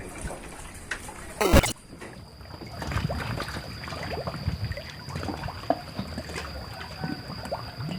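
Water lapping and splashing with scattered small knocks and clatter. About one and a half seconds in there is a brief loud wavering sound, and a steady high whine runs on after it.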